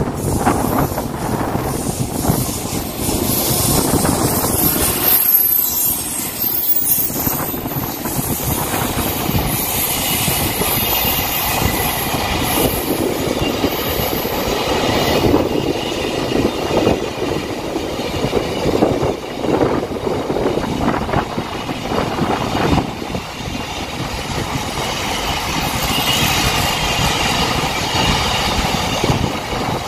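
Container freight train hauled by a WAG-9 electric locomotive rolling past: a steady rumble and clatter of loaded container wagons over the rails.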